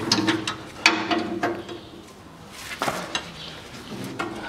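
Socket wrench on a long extension working a stuck underbody skid-plate bolt: sharp metallic clicks and knocks in short clusters, near the start, about a second in and around three seconds. The bolt is seized tight, which the mechanic blames on it being done up with an impact gun.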